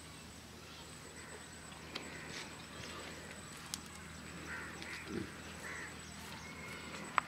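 Fairly quiet outdoor village background with a few short bird calls, likely poultry, about halfway through, and a few light clicks.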